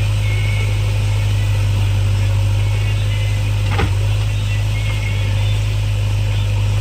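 JCB backhoe loader's diesel engine running with a steady low drone, with a single sharp knock a little past halfway.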